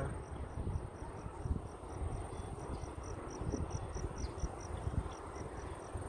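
An insect in the grass chirping: short, high pulses repeated steadily at about four a second, over a low background rumble.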